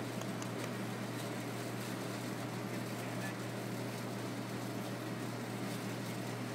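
Steady low hum of rooftop air-conditioning equipment running, over a constant hiss.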